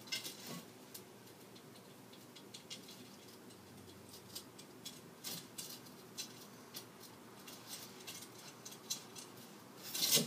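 Wire bicycle spokes clicking, ticking and scraping against an aluminium rim and hub as they are laced in by hand and nipples fitted: light irregular metallic ticks throughout, with a louder clatter near the end.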